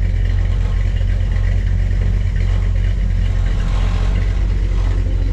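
Squarebody Chevy truck's engine idling steadily through its headers, the broken header tube repaired so the exhaust leak is gone.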